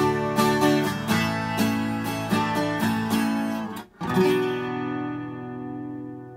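Yamaha FG-350 twelve-string acoustic guitar: a quick run of plucked notes and strums, then a short break and a final chord struck about four seconds in, left to ring out and fade.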